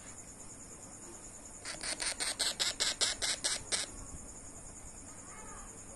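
Parrot chick giving a rapid series of about ten short squawks, roughly five a second, for about two seconds, starting about two seconds in.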